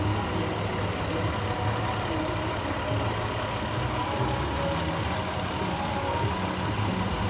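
A vehicle engine running steadily at idle, a constant low hum.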